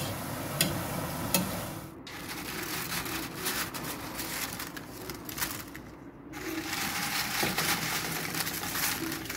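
Green plantain slices sizzle in hot oil as a skimmer stirs them for the first two seconds or so. After that, dry, crisp fried plantain chips rustle and crackle as hands rummage through a dish of them, with a short break near the middle.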